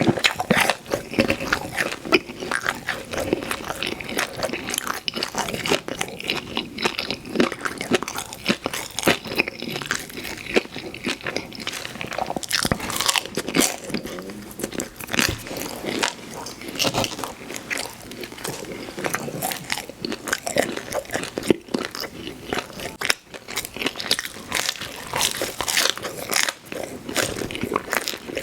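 Close-miked chewing of pizza with big bites: wet, irregular mouth sounds with crunching of the crust.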